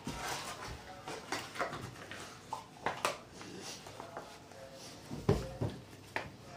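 Scattered light clicks and knocks as a Rottweiler mouths and paws a plastic toy on a bed, with one louder dull thump about five seconds in.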